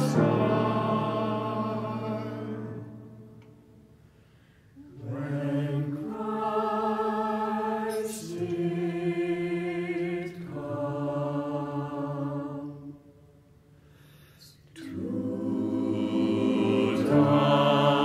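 Mixed choir of men's and women's voices singing a slow piece in sustained chords. A held chord fades away, a short pause follows, then several phrases, another pause, and a swell to a full, loud chord near the end.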